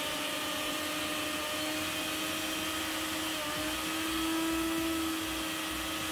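New Bajaj Ninja 500-watt mixer grinder motor running empty with no jar fitted: a steady motor whine. It rises slightly in pitch and gets a little louder about three and a half seconds in, as the speed knob goes from speed 1 to speed 3.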